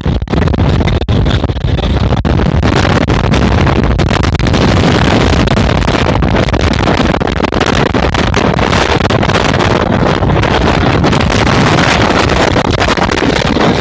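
Loud, steady wind buffeting a phone microphone held out of a fast-moving train, over the train's running noise on the track. A few brief dropouts come in the first couple of seconds.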